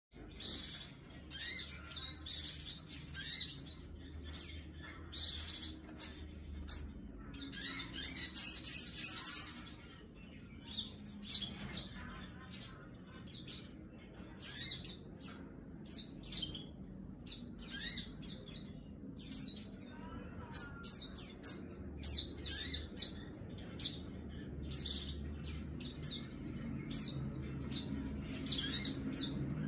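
Crimson sunbird (kolibri sogon) singing nonstop in fighting mode: rapid, very high, sharp chirps and trills, with the densest run of trilling about eight to ten seconds in.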